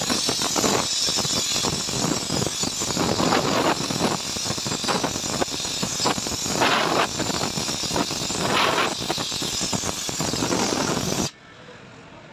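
Gas welding torch flame hissing steadily with irregular crackling as filler rod is melted onto an aluminium alloy wheel rim. Near the end the hiss drops suddenly to a much quieter level.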